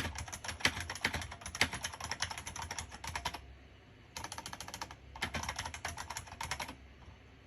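IBM Model M60 mechanical keyboard being typed on quickly: rapid key clicks in bursts with short pauses, stopping about a second before the end.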